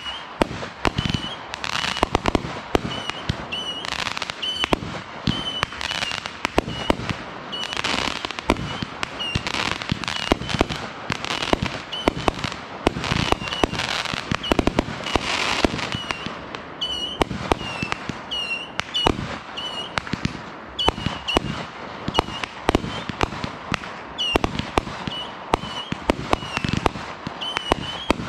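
Aerial fireworks firing in quick succession: a dense run of launch thumps and bursting bangs, several a second, with crackle. A faint short high chirp repeats about once a second behind them.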